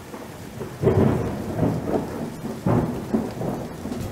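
Rain falling steadily, with low rolling rumbles of thunder that swell up about a second in and again near three seconds.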